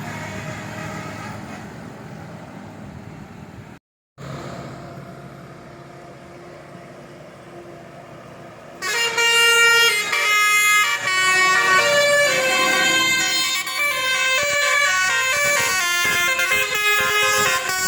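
Road vehicle noise, then about nine seconds in a bus's musical 'telolet' air horn starts up loud, playing a multi-note tune that jumps from one pitch to the next.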